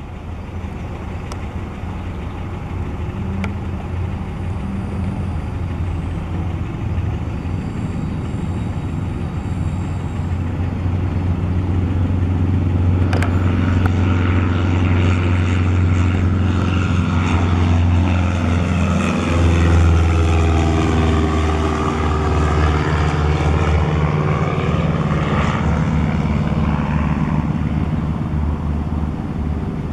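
Single-engine piston propeller plane at full power on its takeoff run and climb-out, its engine and propeller growing louder to a peak about twenty seconds in, with the pitch sweeping as it passes and then easing as it climbs away.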